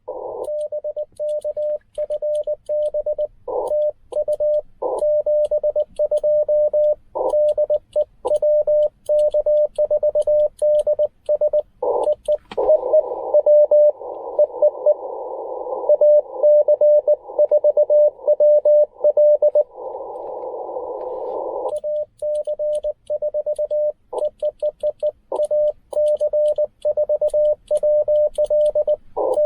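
Morse code (CW) from a Ten-Tec Argonaut V transceiver, a single steady tone keyed on and off: the operator's own sending on the keyer sidetone with faint clicks from the paddle key, then from about 12 to 22 seconds in a station's code heard over the receiver's hiss, then sending again.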